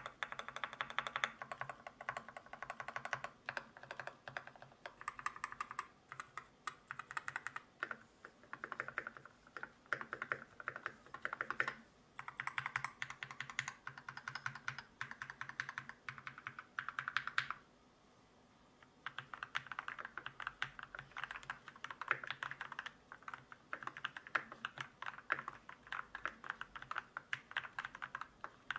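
Typing on a Keychron C2 Pro mechanical keyboard fitted with tactile Banana switches and ABS keycaps: fast runs of keystroke clacks, with a short pause about two-thirds of the way through.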